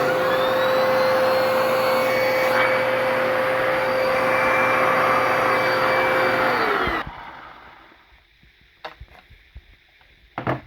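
Bissell 2161E vacuum cleaner running at full power with a steady motor whine. It is switched off about seven seconds in and its pitch drops as the motor winds down. A few faint clicks follow.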